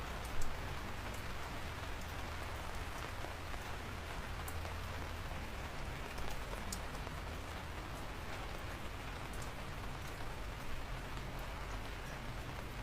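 Steady rain falling, with individual raindrops ticking sharply over the hiss; one louder drop lands about half a second in.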